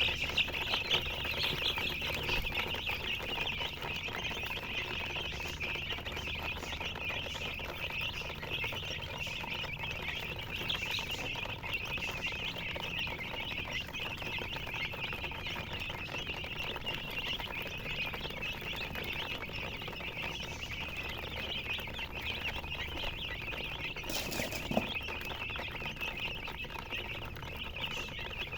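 Many baby chicks peeping continuously, a dense chorus of high, overlapping chirps. One brief rustle about 24 seconds in.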